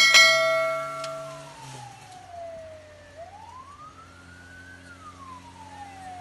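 Fire truck's wailing siren, heard from inside the cab, sliding slowly up and down about every four seconds over the low hum of the engine. It opens with a loud horn blast about a second and a half long.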